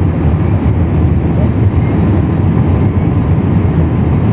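Steady low rumble of an airliner during its landing, heard inside the passenger cabin.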